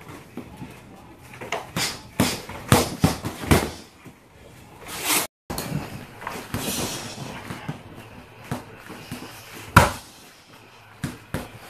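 Gloved punches and kicks striking a Title hanging dummy and then an Outslayer heavy bag: a quick string of thuds, a brief cut to silence about halfway, then more scattered strikes, the loudest a kick near the end.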